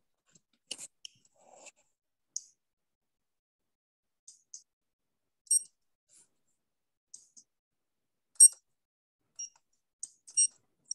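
A dozen or so short, sharp clicks at uneven intervals, several with a faint high ringing tone. The loudest comes about eight and a half seconds in.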